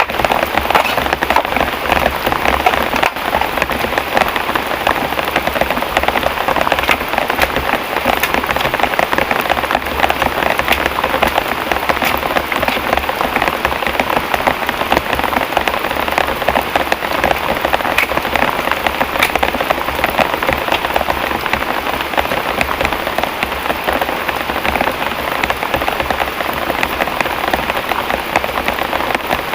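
Heavy downpour: steady, dense rain pattering with many fine drop clicks and no let-up.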